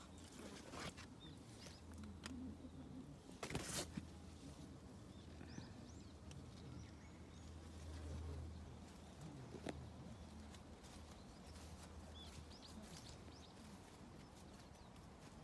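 Quiet rural outdoor ambience: faint small bird chirps now and then over a low steady rumble. A few sharp clicks come through, the loudest a short cluster about three and a half seconds in.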